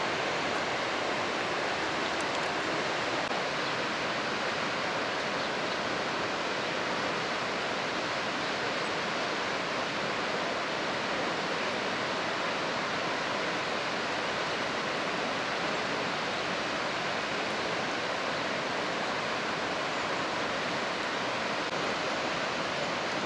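The Rhine Falls, a large waterfall, giving a steady, unbroken roar of falling water.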